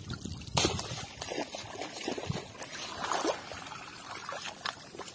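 Water splashing and trickling as a mesh landing net is worked through shallow water and lifted out dripping, with a sharp splash about half a second in.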